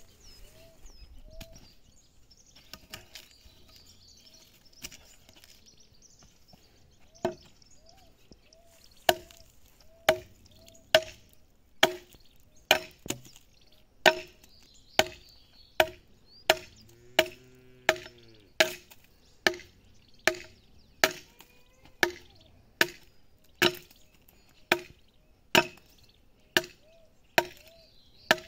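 Axe chopping into a wooden log, hewing it by hand into an ox-cart axle: a few scattered strikes, then steady blows about one a second from roughly a third of the way in.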